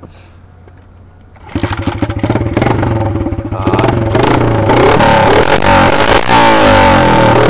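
Small 70cc Baja dirt bike engine catching about a second and a half in, then revved up and down, getting louder from about four seconds in.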